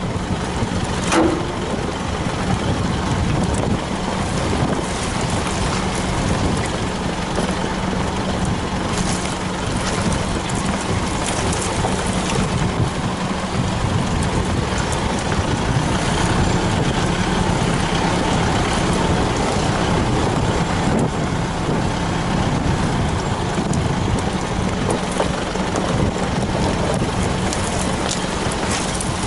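Isuzu 4WD driving a muddy track: the engine runs at a steady drone under a broad rumble of tyre and body noise, with a sharp knock about a second in.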